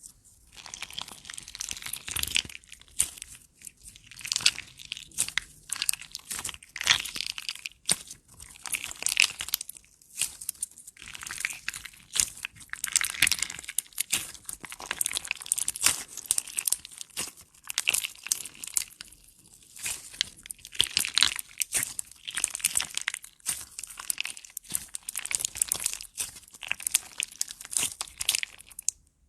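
Slime being squished and worked, making dense crackling and crunching in quick clusters with short pauses between.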